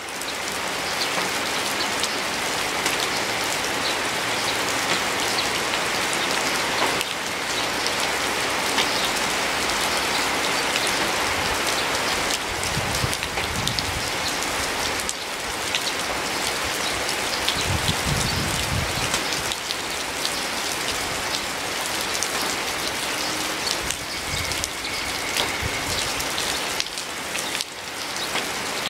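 Rain falling steadily: a constant dense hiss with many individual close drops ticking through it.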